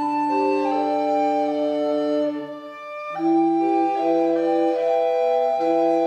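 A recorder consort of five players, from small recorders down to a square wooden bass recorder, playing slow sustained chords with an organ-like sound. The chord dies away about two and a half seconds in, and a new phrase enters about half a second later.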